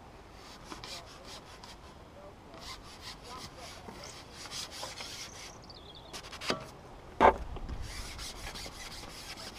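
Rubbing and scraping handling noise from the angler's carbon pole and clothing while a fish is played on the pole, in clusters of quick scratchy strokes. Two sharp knocks come about six and a half and seven seconds in, the second the loudest.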